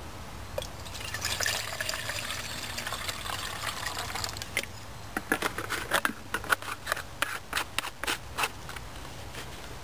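Water poured from a plastic water bottle into a 12 cm stainless steel Zebra billy can, a steady splashing fill from about a second in until about four and a half seconds. It is followed by a run of short sharp ticks and knocks.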